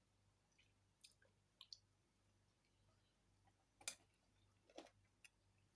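Near silence broken by scattered faint clicks of eating at close range, about six in all, the loudest about four seconds in, over a faint steady low hum.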